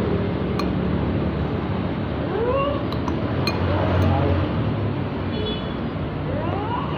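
A cat meowing about three times, each meow rising then falling in pitch, over steady background noise. A few light clinks of cutlery on plates.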